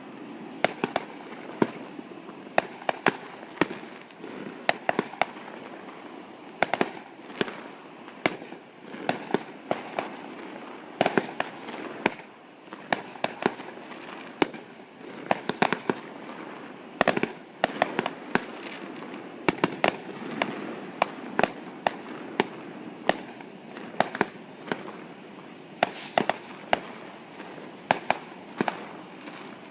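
Fireworks exploding in a dense, irregular string of sharp bangs, sometimes several a second, heard from across a lake. A steady high-pitched whine runs underneath.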